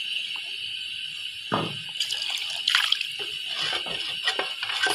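Black chickpea curry bubbling and sizzling in a pot just after water was added, stirred with a wooden spoon; a few soft knocks of the spoon against the pot, the clearest about one and a half seconds in.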